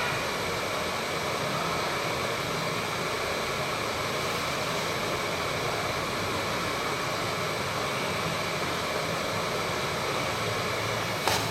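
Hot air rework gun blowing steadily, a continuous airy hiss, with one short click near the end.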